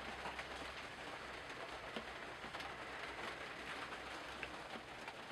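Steady rain falling on a narrowboat, heard from inside the cabin as an even hiss dotted with many small drop ticks.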